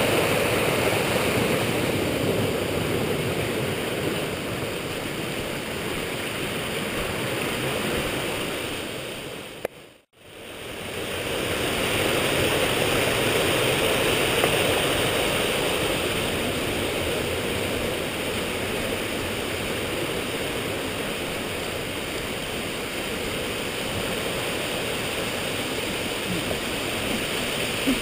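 Rushing mountain stream: a steady rush of white water. The sound fades out briefly about ten seconds in and fades back up.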